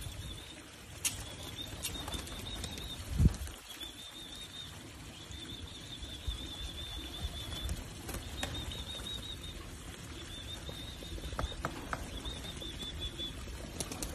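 Pigeon wings flapping as it flies in and lands, with a few low thumps and scattered sharp clicks. Behind it, a high wavering trill repeats in runs of about a second.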